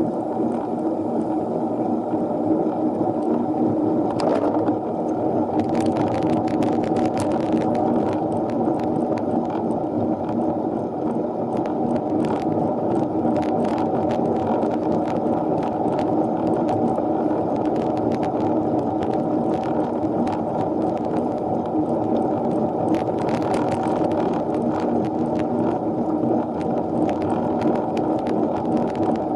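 Steady muffled riding noise from a minivelo road bike climbing, picked up by the action camera: tyres on tarmac, drivetrain and moving air, with scattered light clicks and ticks.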